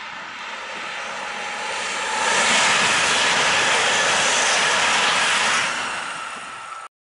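ICE 3 high-speed train passing at speed: a rushing noise that swells over about two seconds, holds at full loudness for about three seconds while the carriages go by, then falls away and cuts off suddenly near the end.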